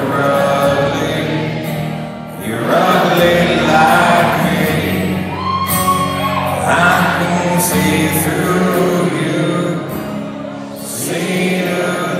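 Live amplified performance: a man singing into a microphone while strumming an acoustic guitar.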